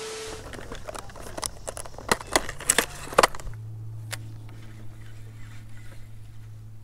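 A TV-static hiss with a steady tone running through it, cutting off about half a second in. A run of sharp clicks follows for about three seconds, then a low steady hum.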